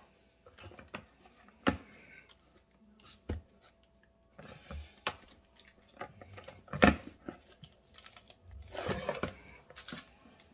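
A metal tortilla press and paper being handled on a wooden countertop: scattered light knocks and clacks, the sharpest a little before seven seconds in, with a stretch of paper rustling near the end.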